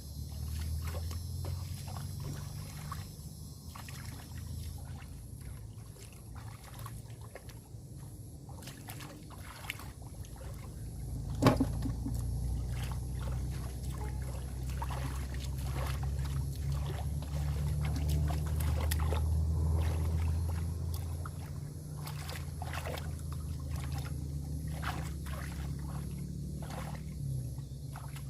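Water splashing and trickling in short, irregular bursts over a steady low rumble, with one sharp knock about eleven seconds in.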